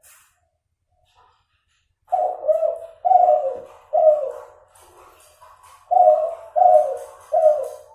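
Spotted dove (derkuku) of Kelantan-cross F2 stock cooing: after a short pause, a phrase of about four low coos, then a second phrase of three. The voice is still nasal, with an inconsistent number of closing notes, which the breeder takes as not yet clear or consistent.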